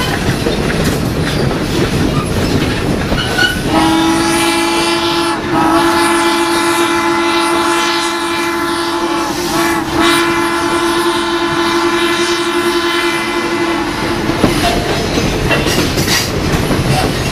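Western Maryland 2-8-0 Baldwin Consolidation steam locomotive No. 734 blowing its whistle in long blasts, sounding for a grade crossing ahead. The whistle starts about four seconds in, breaks briefly near ten seconds and stops about fourteen seconds in, over the steady clatter of the coaches running on the rails.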